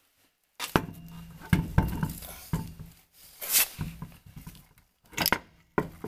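Irregular metallic clinks and knocks as a truck wheel is set on the hub studs and lug nuts are started on them by hand.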